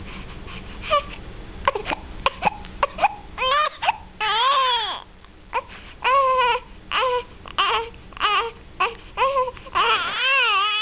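Infant crying in a string of short, high, rising-and-falling cries, with a longer wail about four seconds in and another near the end.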